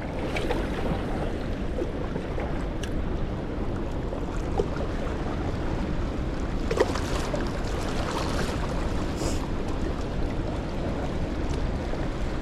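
Steady low rushing noise, water-like, with a few faint clicks and taps over it and one slightly sharper tick about halfway through.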